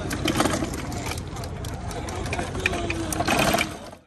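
A hand truck rolling across asphalt, its wheels and the heavy all-metal machine-gun model it carries rattling and clattering steadily. The sound cuts off suddenly near the end.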